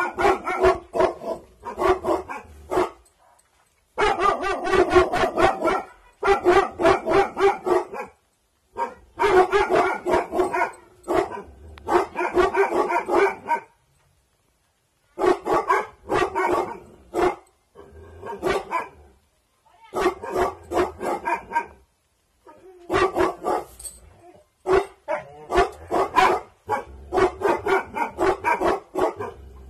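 Bhotia dog (Himalayan sheepdog) guard barking: rapid runs of several barks a second in bouts, broken by short pauses.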